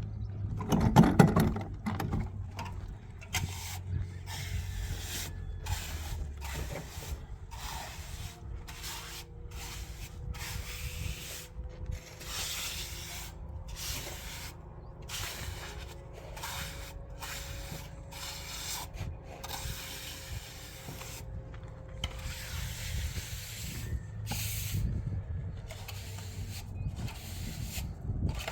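Irregular run of hand scraping strokes, each about half a second to a second long, with short gaps between them and a louder knock about a second in.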